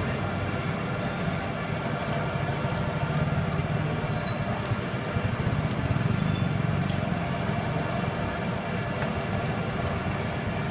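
Hot oil sizzling steadily as aloo bondas deep-fry, over a steady low mechanical hum.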